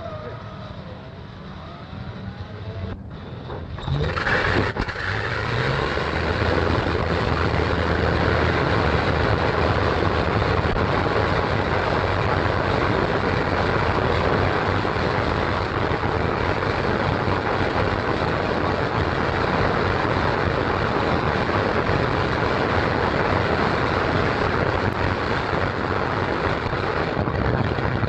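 Short Stirling bomber's four Bristol Hercules radial engines starting about four seconds in, from a starter trolley, then running steadily.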